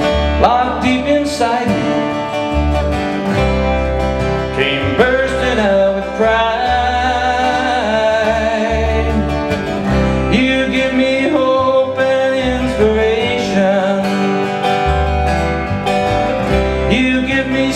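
Live acoustic country music: two acoustic guitars strumming and an upright bass plucking the low notes under a man's sung lead vocal, with long drawn-out lines.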